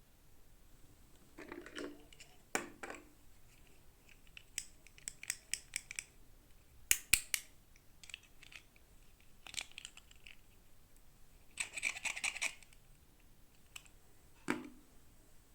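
Plastic toy packaging and doll parts being handled and opened: irregular sharp clicks and short crinkling rustles, with the busiest crinkling about twelve seconds in.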